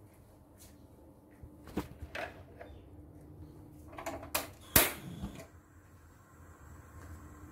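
A few light clicks and knocks of a stainless steel pot being handled on a gas stove, with one sharp metallic clack about five seconds in.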